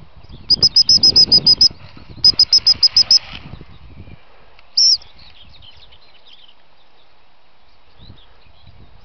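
Gundog whistle blown in two quick trains of about eight high pips each, then one short blast about five seconds in: the pip-pip-pip recall signal that calls a working spaniel back to the handler. Faint birdsong carries on behind it.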